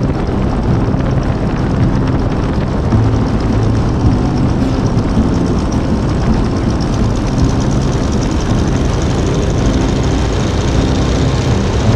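A 1942 Stearman PT-17 biplane's Continental seven-cylinder radial engine and propeller running loud and steady during the takeoff roll, heard from the open cockpit with wind on the microphone.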